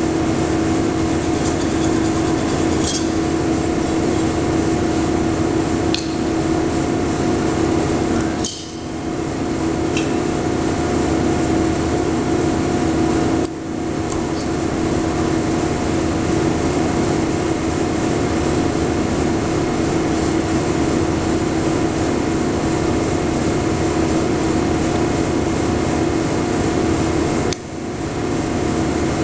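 Silicon bronze welding arc running steadily: a continuous hiss with a strong low hum. The arc breaks off briefly three times, about a third of the way in, about halfway and near the end, and each time swells back up over about a second.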